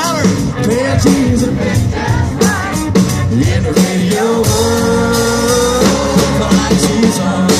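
Live country band playing: strummed acoustic guitar and drums under a sung lead vocal, with one long held note about halfway through.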